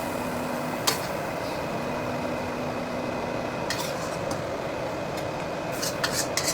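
Metal spatula clinking against an iron wok a few times, about a second in, midway and in a quick cluster near the end, as a stir-fry is dished out, over the steady noise of a running kitchen range hood.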